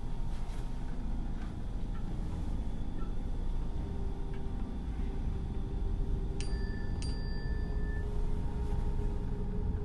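A phone's text-message alert: two chiming notes about half a second apart, ringing out briefly, about six seconds in. Under it runs the steady low hum of a window air conditioner.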